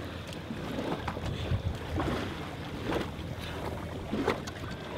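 Wind buffeting the microphone over water lapping and splashing around a small boat, with a few short splashes about two, three and four seconds in.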